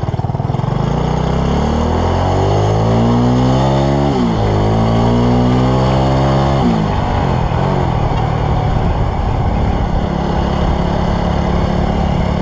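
Motorcycle engine accelerating through the gears, heard from the rider's seat: the revs climb, drop at a gear change about four seconds in, climb again, drop at another shift near seven seconds, then hold steady at a cruise.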